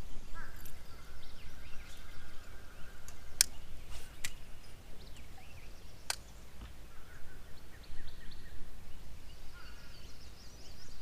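Outdoor ambience on the water: birds chirping on and off over a steady low rumble, broken by three sharp clicks a few seconds in.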